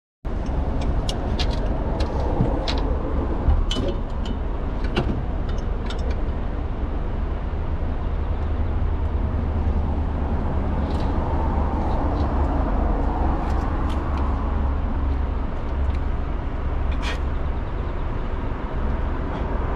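Steady low rumble of an idling truck engine. Over it come sharp metallic clicks and clinks of hand tools on the engine's plumbing while a radiator hose is being changed, most of them in the first few seconds and a few more later on.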